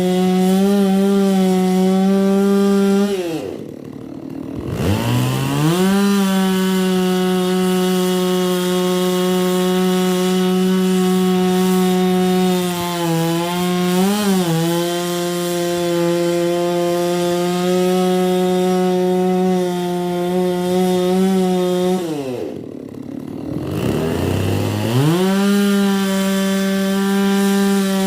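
Holzfforma G660 two-stroke chainsaw, a Stihl MS660 clone, running at high speed while cutting wood. Twice its engine speed drops sharply and climbs back to full revs within about two seconds.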